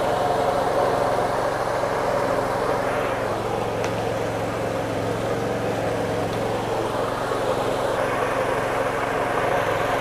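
Motor-driven stone-disc grinder running steadily, stone grinding on stone as it mills shallots and garlic into a wet paste.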